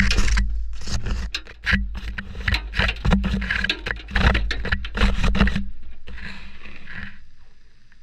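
Laundry tumbling in a front-loading washing machine, heard from a camera riding inside the load: a low drum rumble under a rapid run of knocks and clunks as clothes and things hit the camera and the drum. The knocks stop about five and a half seconds in, leaving a brief rustle of cloth as the drum comes to rest.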